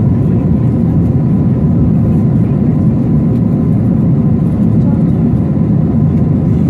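Cabin noise of an Airbus A320-family jet airliner climbing after takeoff: a steady low roar of engines and airflow with a faint, steady high whine on top.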